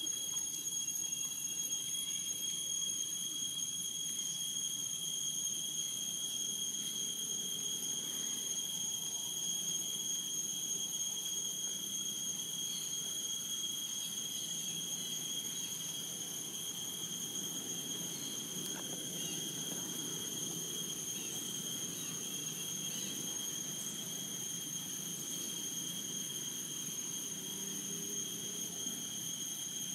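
Insects calling steadily: a continuous high-pitched drone that holds the same pitch throughout, over a faint low background noise.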